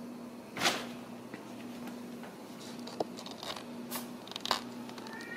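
Fabric rustling and scattered bumps and scrapes from a Ragdoll kitten scrambling in and around a fabric pop-up cat cube, the loudest about half a second in. A kitten's meow begins at the very end.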